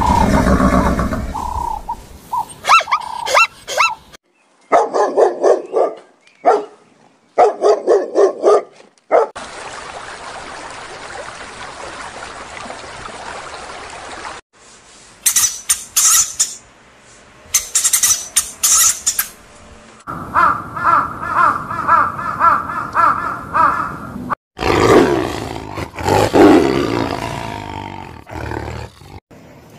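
A run of different animal calls edited one after another: repeated calls, a steady hiss for about five seconds midway, sharp high calls, then a tiger roaring and growling near the end.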